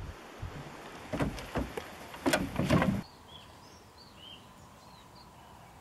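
Footsteps and dog paws on steel mesh stair treads: a string of uneven knocks and thumps for about three seconds. Then it goes quiet apart from a few short, high bird chirps.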